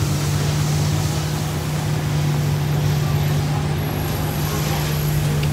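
Steady mechanical drone with a strong, constant low hum over a noisy background.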